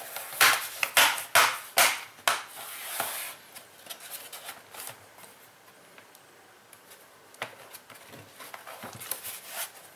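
Plastic snap clips of an Acer ES1-512 laptop's top cover (keyboard and palmrest deck) clicking into the base as it is pressed down by hand. A run of sharp clicks comes over the first three seconds or so, then fainter handling, with another single click about seven and a half seconds in.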